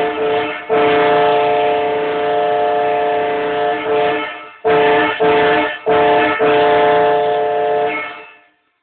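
Multi-chime air train horn sounding a steady chord of several tones in a run of blasts: one long, a few short, then a final long blast that fades out about eight seconds in.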